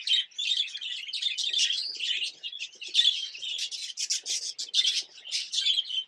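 Budgerigars chirping and chattering without a break, many quick high chirps overlapping one another.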